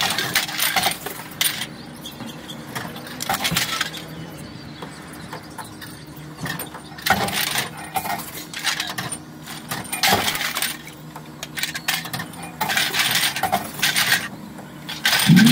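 Empty bottles and cans clinking and rattling as they are pulled from bags in a shopping cart and fed one at a time into Envipco reverse vending machines, with a steady low hum from the machines.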